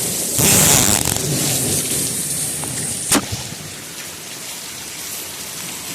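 Thunderstorm rain falling with a steady hiss. A louder rush comes about half a second in, and a single sharp crack about three seconds in.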